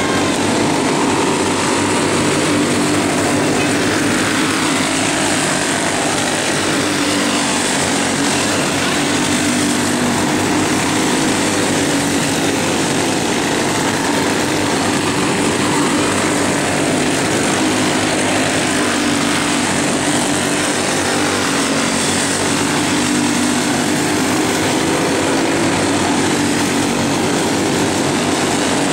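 Box stock dirt racing kart engines running around the oval, a steady loud din whose pitch wavers up and down as the karts pass.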